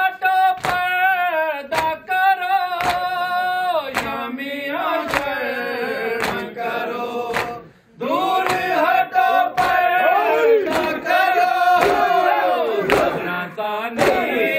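Men chanting an Urdu noha (Shia lament) together in a low, slow melody, with rhythmic chest-beating (matam) slaps about three every two seconds. The chanting drops out for a moment about halfway through.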